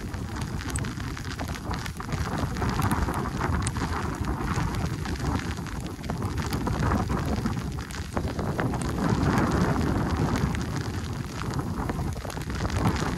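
Heavy sleet pattering steadily, with wind buffeting the microphone.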